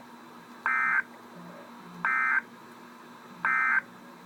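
Emergency Alert System data tones: three short, identical warbling bursts of digital SAME code, about a second and a half apart. Bursts this short, sent three times after a spoken warning, are the end-of-message signal that closes the alert.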